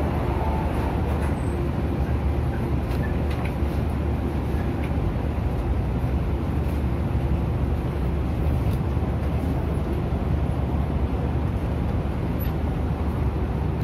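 Steady low rumble inside a Hong Kong MTR Tung Chung line train carriage standing at a station platform, even and unchanging throughout.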